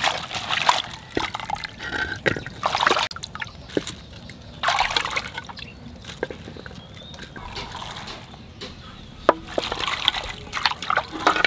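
Hands sloshing and swishing cut cauliflower and green beans in a terracotta bowl of water, in irregular bursts of splashing with dripping between them.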